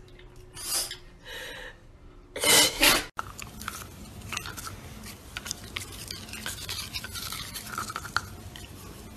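A French bulldog sneezes a few times, the loudest two close together about two and a half seconds in. Then a dachshund chews on a toothbrush in its mouth, the brush scraping and clicking against its teeth in scattered small clicks.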